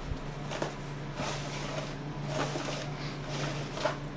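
Soft, scattered handling and rustling noises, about five short strokes, over a steady low hum.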